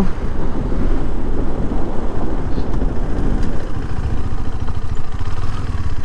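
Motorcycle engine running and road and wind noise as the bike slows and turns around, picked up by a helmet-mounted mic. It gets a little quieter in the second half.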